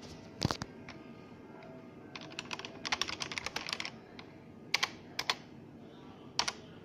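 Keys of a Citizen CX-123 printing calculator clicking as they are pressed. A single click comes first, then a quick run of many clicks in the middle, then a few separate presses near the end.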